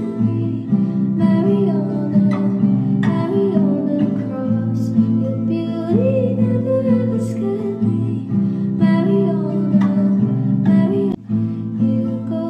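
Background music: an acoustic guitar piece with plucked and strummed strings, playing steadily.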